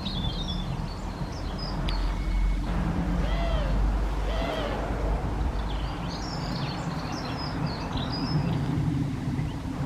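Garden birdsong: several small birds singing, with a European goldcrest's very high, thin song phrases through the second half. A few lower arched calls come about three to five seconds in, over a low rumble of wind on the microphone.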